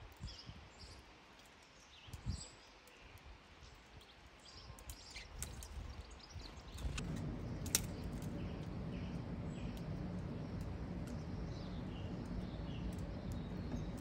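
Small garden birds chirping faintly in short, high, repeated notes. About halfway through, a steady low rumble sets in underneath.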